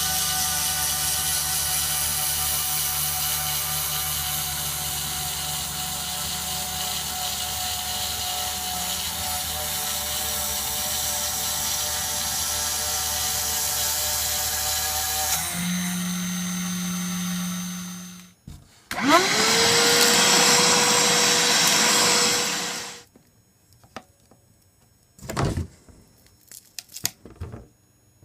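Mini CNC mill's spindle running a carbide router bit through 1.6 mm double-sided glass-epoxy circuit board, a steady machine whine with fixed tones. About 15 seconds in the cutting sound changes to a plainer hum, which stops at about 18 seconds; then a motor starts with a rising whine, runs loudly for about 4 seconds and stops, and a few short knocks follow near the end.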